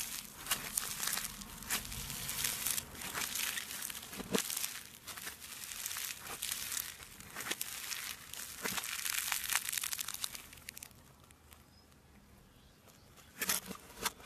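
Green floam (foam-bead slime) squeezed and kneaded by hand, a dense run of crunchy crackles played in reverse. Near the end it falls quiet for about two seconds, then crackles again just before it ends.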